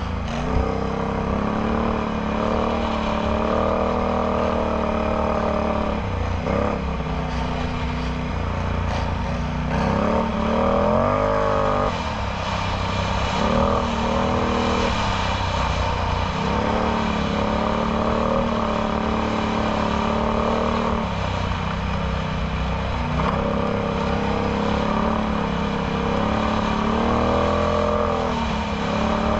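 Can-Am Outlander X MR 850 ATV's V-twin engine through a Yoshimura slip-on exhaust, under way with the throttle opened and closed again and again, so its pitch keeps rising and falling.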